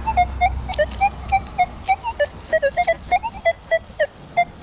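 Metal detector giving a rapid run of short electronic beeps, about four or five a second, jumping between several pitches as the coil is swept over ground full of iron and junk targets.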